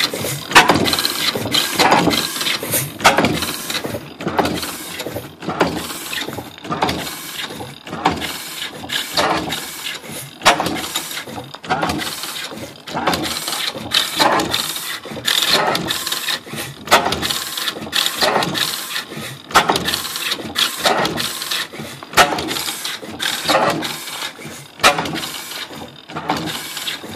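15 hp Superior single-cylinder horizontal stationary engine running, a slow, slightly uneven rhythm of sharp clacks and exhaust beats roughly once or twice a second. The engine has just been mechanically restored and still needs a little tuning.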